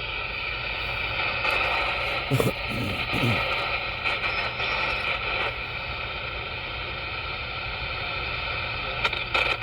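CB radio receiver full of static and interference: a steady hiss with several steady whining tones running through it, the QRM and splatter that keep the distant station from being heard. About two and a half seconds in there is a brief, faint garbled warble.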